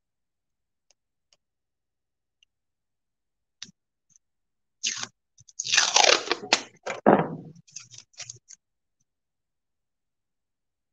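Masking tape pulled off the roll and torn: a loud crackly rasp about halfway through, followed by a few short crackles.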